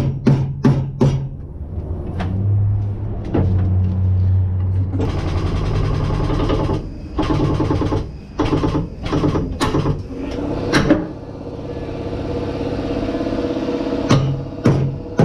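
Hammer strikes on sheet metal, about three a second, in the first second and a half and again near the end. In between is a steady mechanical running noise with occasional knocks, all over background music.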